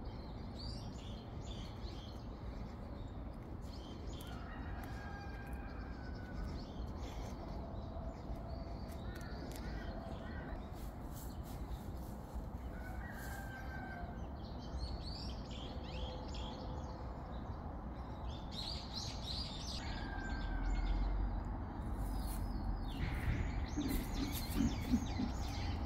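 Birds chirping and calling in scattered short bursts over a steady low rumble, which grows heavier about two-thirds of the way through.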